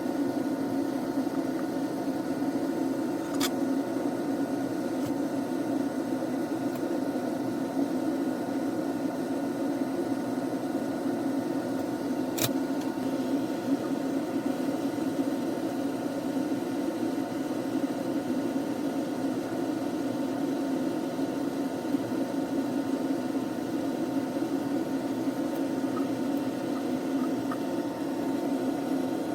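Steady whirring hum of a small fan or blower on a soldering bench, with two faint clicks about three and a half and twelve seconds in.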